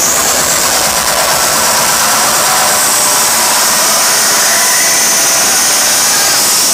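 Electronic dance music from a festival sound system, with the crowd, recorded so loud on a phone that it distorts into a dense, steady wash of noise with no clear beat. A high hiss climbs slowly.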